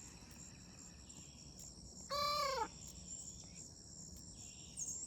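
A chicken gives one short call that drops in pitch at its end, over a steady high chorus of crickets.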